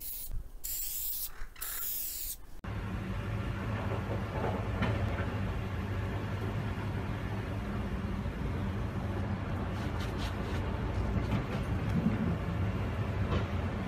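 Aerosol spray-paint can hissing in three short bursts over the first two seconds or so, then a steady low rumble with a fainter spray hiss while a wall is spray-painted.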